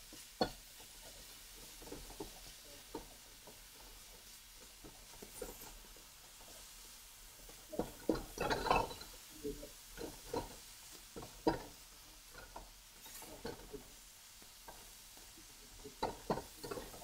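A plastic slotted turner scrapes and taps against a non-stick wok in irregular strokes while stirring and breaking up ground meat, over a faint steady sizzle of the meat frying. The strokes come thickest and loudest about halfway through, with another flurry near the end.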